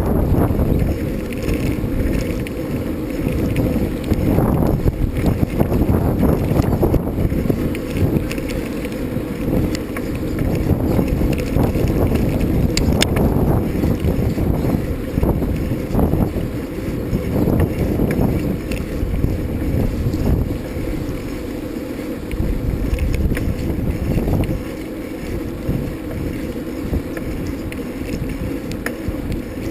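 Wind buffeting the microphone during a bicycle ride, a continuous low rumble with scattered knocks and rattles from the bike going over rough ground.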